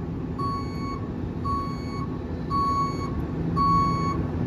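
A vehicle's reversing alarm beeping steadily about once a second, four beeps, over the low running of a truck engine.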